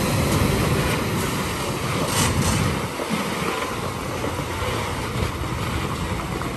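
Diesel engine of a Tata 16-wheeler tipper truck running under load as the truck pulls through deep mud, a steady rumble that slowly gets quieter.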